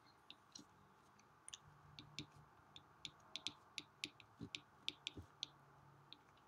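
Faint, irregular light clicks of a stylus tip tapping on an iPad's glass screen during handwriting, a few taps a second.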